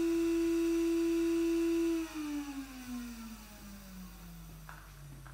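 Electric motor spinning the segmented toothed disc of a Fizeau speed-of-light apparatus: a steady high whine with overtones that, about two seconds in, begins to fall steadily in pitch and fade as the disc slows down.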